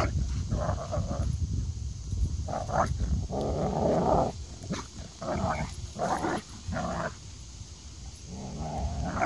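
Two dogs, a German Shepherd and an American Staffordshire Terrier, growling in short repeated bursts as they play-wrestle, quieter from about seven seconds in.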